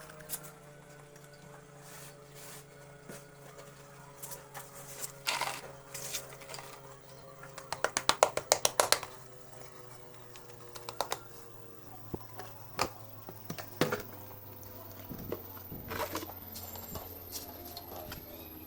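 Dry brown clay or mud being crumbled by hand: scattered crisp cracks and crunches, with a quick run of snaps about eight seconds in.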